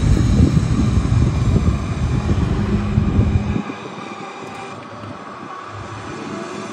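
Diesel engines of Sinotruk HOWO tractor units giving a low, irregular rumble as the trucks drive off. The rumble drops suddenly to a faint background about three and a half seconds in.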